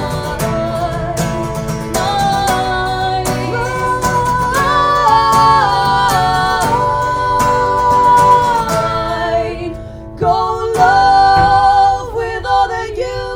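Live folk music: acoustic guitars strummed in a steady rhythm under long, held wordless notes sung by female voices, with a short drop in level about ten seconds in.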